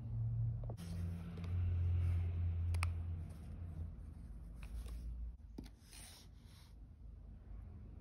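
A microfibre cloth rubbing and wiping inside an open wristwatch case, with low handling rumble and a sharp little click about three seconds in.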